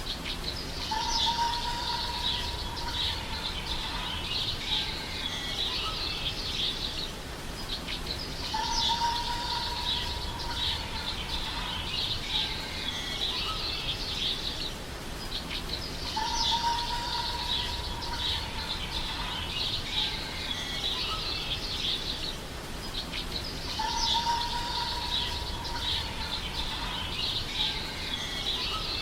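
Birdsong ambience: many small birds chirping densely, with a long steady whistled note about every seven and a half seconds. The same few seconds repeat over and over as a loop.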